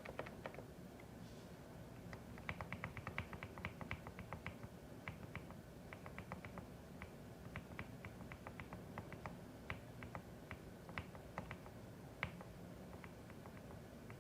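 Typing on a CIDOO ABM081 Stellar mechanical keyboard with Carda switches: key clicks in irregular runs, a quick flurry of keystrokes a couple of seconds in, then slower, scattered presses. A steady low hum lies underneath.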